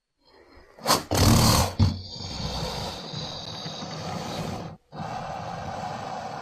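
Baryonyx dinosaur sound effect: after a moment of silence, a short loud roar bursts in about a second in and lasts about a second, ending in a second sharp hit. It gives way to a quieter steady rumbling sound, which cuts out briefly near the end and comes back.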